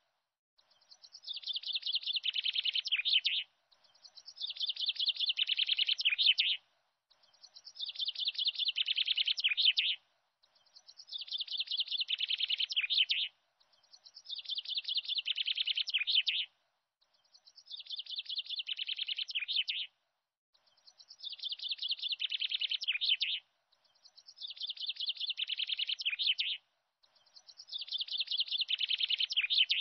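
Looped recording of bird chirping: a rapid trill of high chirps lasting about two and a half seconds, each building in loudness and then cutting off sharply. It repeats identically about every three seconds, with a silent gap between repeats.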